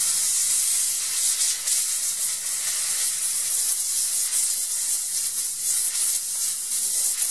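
Compressed-air blow gun hissing in one continuous blast as it blows the top of a rusty fuel tank clean. The hiss starts abruptly and wavers slightly in strength.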